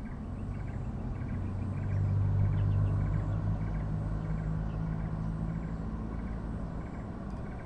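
Low engine hum of a passing car, swelling about two seconds in and then slowly fading.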